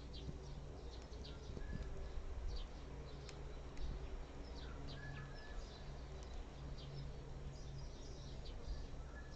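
Small birds chirping in the background, many short high chirps and a few brief whistled notes, over a low hum that comes and goes.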